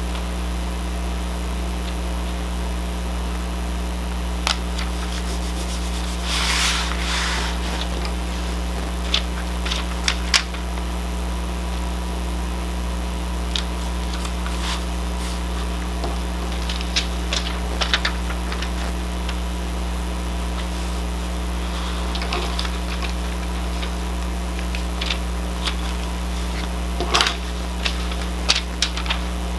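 Paper strips and a thin plastic cover sheet on a diamond-painting canvas rustle and crinkle as they are laid down and pressed flat, in scattered taps and short rustles, with a longer rustle about six seconds in. A steady low hum runs under it all.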